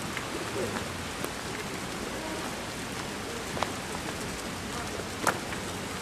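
Steady hiss of falling water, with a sharp click about three and a half seconds in and a louder click about five seconds in.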